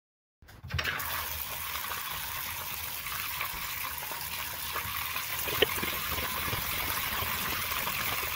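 Bathtub faucet running, water pouring steadily into the tub to cover moss being rinsed; it starts abruptly about half a second in, with one brief knock about halfway through.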